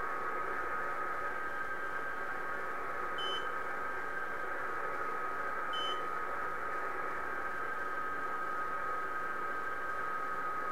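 HF amateur radio audio of a PSK31 band: hiss of band noise with the steady tones of PSK31 signals being received. Twice, about three and six seconds in, the portable digital modem gives a short high beep, its alert that it has detected a call sign in the decoded text.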